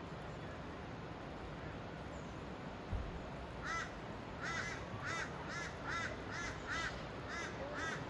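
A bird calling in a quick series of about ten short, repeated notes, two to three a second, starting about halfway through, over a steady background rush. A brief low bump comes just before the calls begin.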